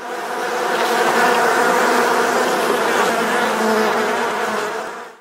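Bees buzzing: a steady, even hum that swells in at the start and fades out just before the end.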